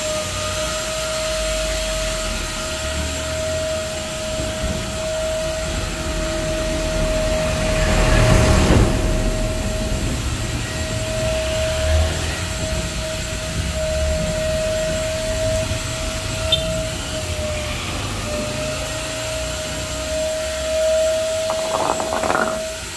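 Vacuum cleaner running with a steady high whine, drawing water out of a rain-soaked car floor. A louder rushing surge comes about eight seconds in, and the whine dips briefly about eighteen seconds in.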